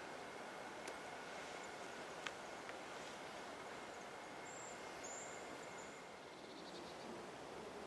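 Faint outdoor ambience: a steady hiss with a few light ticks and a couple of brief, thin high-pitched peeps about halfway through.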